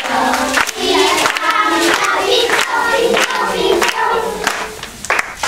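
A group of young children singing together, ending in a short dip before clapping starts near the end.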